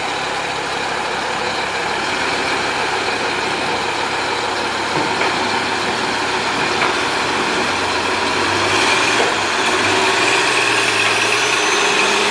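Heavy diesel truck engine running under load as a log truck, laden with huge logs, pulls off a river ferry and up a sandy bank; it grows a little louder about two-thirds of the way in.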